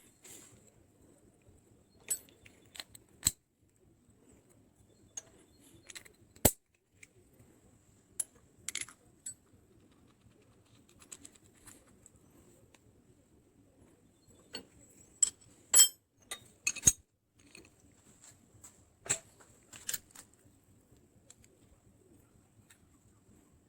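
Small metal parts being handled: scattered sharp clicks and clinks, with a cluster of louder ones about two-thirds of the way through.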